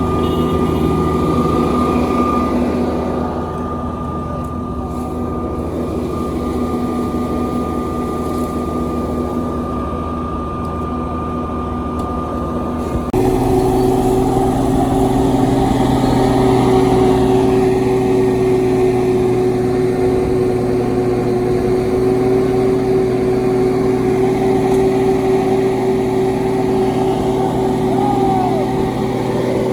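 Engines of road construction machinery running steadily. About 13 seconds in, the sound switches abruptly to a different engine running at a steady pitch.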